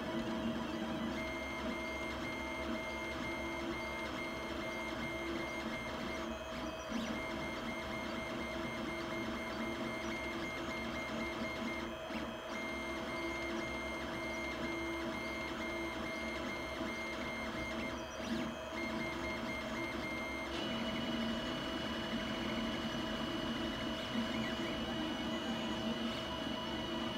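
FDM 3D printer printing a gear: its stepper motors give off a high electronic whine that breaks off every few seconds and jumps to a higher pitch about two-thirds of the way through, over the steady whir of the hot-end cooling fan.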